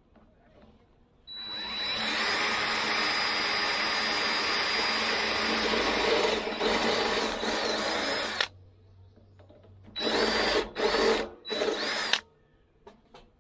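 DeWalt cordless drill boring into the steel wall of a smoker's cook chamber. One long run of about seven seconds starts about a second in, followed by three short bursts near the end, the motor's whine rising as it spins up each time.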